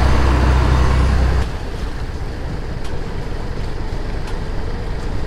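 Small motorboat's engine running with a steady low drone over rushing water; about a second and a half in the drone drops away abruptly, leaving a quieter, rougher low rumble.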